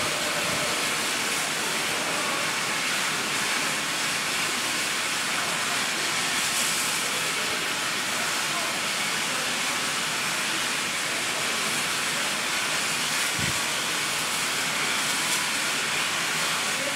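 Soviet class Er 0-10-0 steam locomotive standing and venting steam: a steady, even hiss that does not change. A single short low thump about thirteen seconds in.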